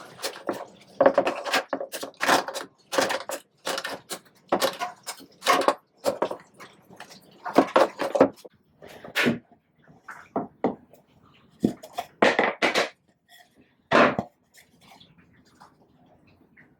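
A run of short, irregular scraping strokes, about two a second, thinning out to a few isolated strokes after about ten seconds.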